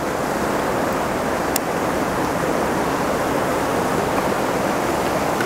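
Fast river rapids rushing steadily, an even wash of whitewater, with a single small click about a second and a half in.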